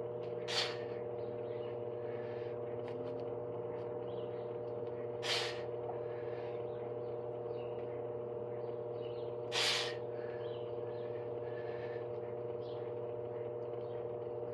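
Three sharp, hissing breaths pushed out through the mouth, about four and a half seconds apart, one per push-up rep. Under them runs a steady mechanical hum.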